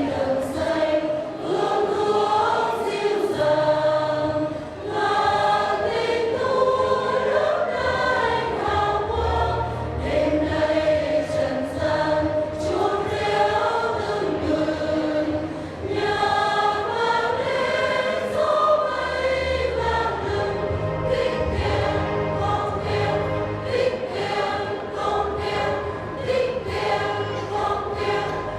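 Parish church choir singing a Vietnamese Christmas song with instrumental accompaniment, steady low notes sounding beneath the voices.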